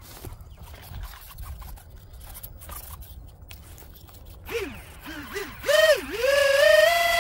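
Electric ducted fan of a small RC jet being run up: a few short throttle blips, each a whine that rises and falls, then the fan spools up to a steady high whine that holds near the end. Before that there is only faint rustling and a few clicks.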